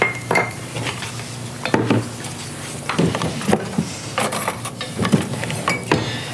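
Metal measuring cups and utensils clinking and knocking against the countertop and a stainless mixer bowl: irregular taps and clatters, with a short ringing ping right at the start.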